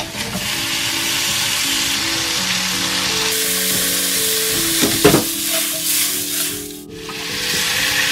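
Spicy marinated pork duruchigi and garlic sizzling loudly in a hot non-stick wok while being stirred with a wooden spatula. A sharp knock comes about five seconds in, and the frying dips briefly near seven seconds before picking up again.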